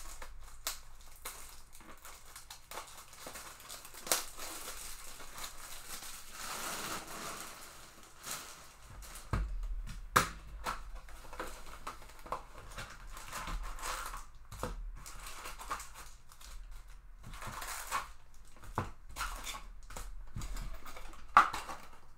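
A cardboard trading-card box being opened by hand: wrapping crinkling and tearing, the box and its flaps handled, and card packs lifted out and set down in stacks. Scattered sharp taps and knocks run through it, the loudest about 4 and 10 seconds in and near the end.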